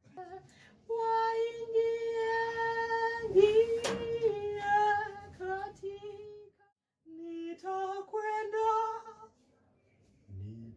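A high voice singing slow, long-held notes of a song melody, in phrases with short breaks between them. A sharp click sounds about four seconds in.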